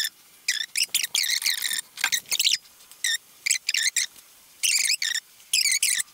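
RTV silicone tube squeezed in nitrile-gloved hands while laying a gasket bead along an oil pan rail: high-pitched squeaks in short, irregular bursts, starting and stopping many times.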